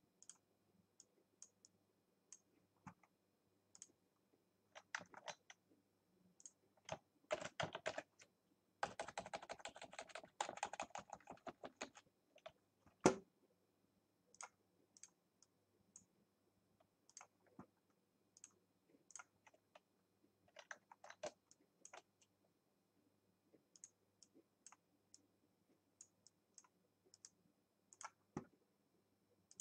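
Scattered clicks of a computer mouse and keyboard keys. About nine seconds in comes a dense run of rapid clicks lasting a few seconds, and a single sharper click follows about a second later.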